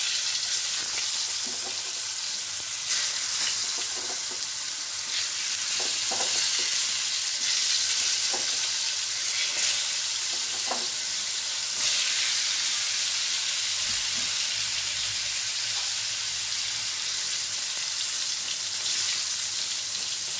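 Halved pointed gourds (potol) sizzling in hot mustard oil in a frying pan: a dense, steady hiss with scattered crackles, flaring up every few seconds as more pieces go into the oil.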